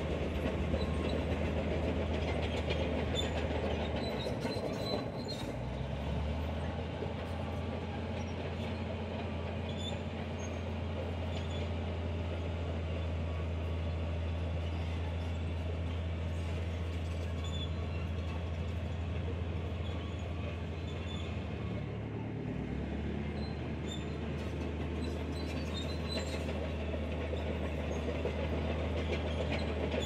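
Komatsu crawler bulldozer's diesel engine running steadily under load, with faint clanking from its tracks. The engine note steps up about four seconds in and drops back about three-quarters of the way through.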